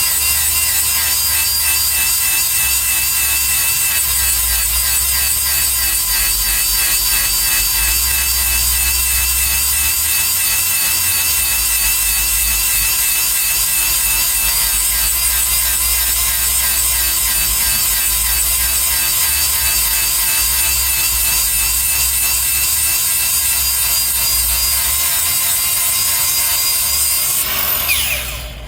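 A handheld power grinder grinding steadily on a steel cutter tooth of a horizontal grinder's mill to sharpen it: a loud, even grinding with a steady whine. Near the end the grinding stops and the tool winds down.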